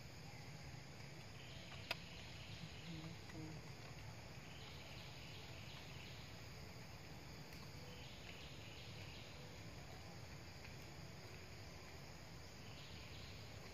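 Faint chorus of insects buzzing in long waves that swell and fade every few seconds, over a steady low hum, with one sharp click about two seconds in.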